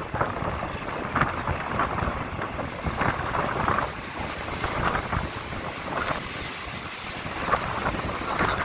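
Passenger train coach running along the track, a steady rumble with irregular clacks of the wheels and rattles of the coach about once a second. Wind buffets the microphone held out of the doorway.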